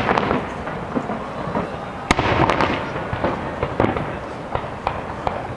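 Aerial firework shells bursting one after another, a series of sharp bangs with a reverberating rumble between them. The loudest bang comes a little over two seconds in.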